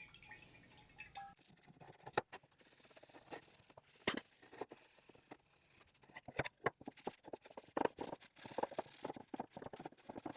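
Irregular light knocks and clicks of objects being handled, coming more thickly in the second half.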